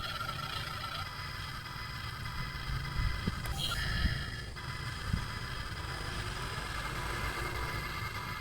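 Toy remote-control excavator's small electric motors whining steadily, the pitch shifting briefly about halfway through, with a few low knocks and scrapes.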